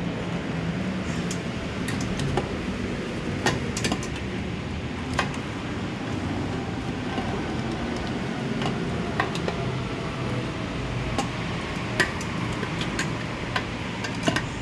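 Steady background hum with irregular light clicks and clinks, about a dozen, spread at uneven intervals: parts and tools being handled while a fuel tank is fitted to a scooter.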